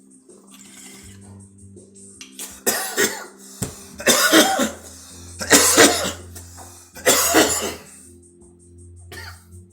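A man coughing hard after a hit of cannabis smoke: four rough coughing fits about a second and a half apart, starting about three seconds in, over music playing in the background.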